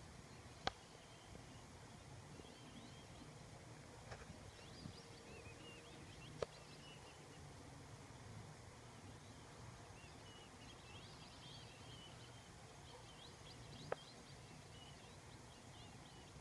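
Faint, distant high whistled calls of black-bellied whistling ducks, many short squeaky notes scattered through, thickest a little after the middle. Three sharp clicks stand out above them, near the start, about the middle, and near the end, over a low steady background noise.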